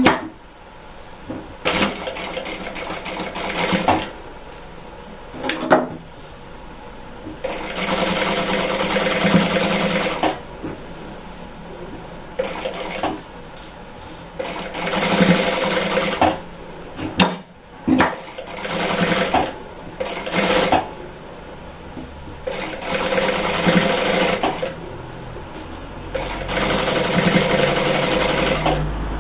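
Sewing machine running in short runs of one to three seconds with pauses between, about seven times, as fabric is fed through to stitch along an edge.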